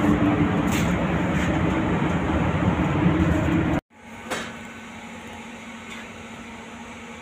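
Spray booth ventilation fans running: a loud, steady rush of air with a low hum. About four seconds in it cuts off abruptly, leaving a much quieter steady hum.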